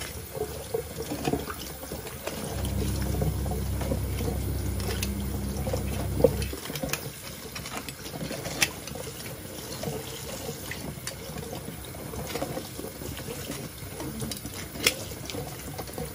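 Tap water running and splashing into a colander of live blue crabs in a sink, with a few sharp clicks of metal tongs as they are stirred. A low hum sounds for a few seconds in the first half.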